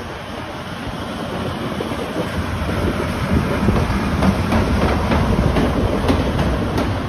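JNR Class D51 steam locomotive D51 498 rolling slowly past at close range, its wheels and running gear on the rails getting louder as it nears. About halfway through a regular beat of sharp clicks sets in, roughly three a second.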